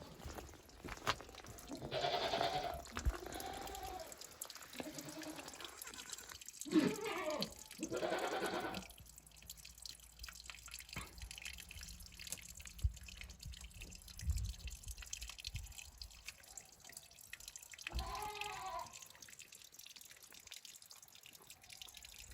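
Goat bleating several times in short, separate calls: a few in the first third and one more near the end. Light ticks and taps sound between the calls.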